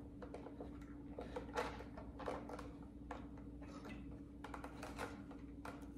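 Faint small clicks and light rustling of hands handling a diecast model's packaging, over a steady low hum.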